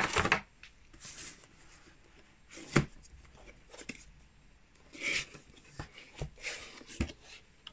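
Cardboard product box being handled: soft rustling and scraping of the cardboard as its sleeve comes off and the inner box is turned over, with a few sharp taps of the box against the table.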